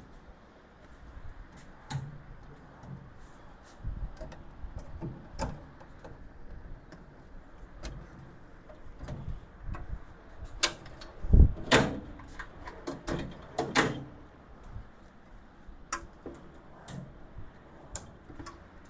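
Steel tool-cart drawers being slid onto extended ball-bearing slides and pushed home: scattered metal clicks and knocks, with a burst of louder knocks about ten to fourteen seconds in.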